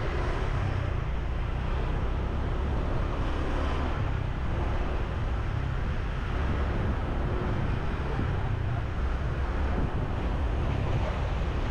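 Steady ride noise of a motorbike moving through town traffic: a low wind rumble buffeting the microphone over the bike's engine and tyre and traffic noise.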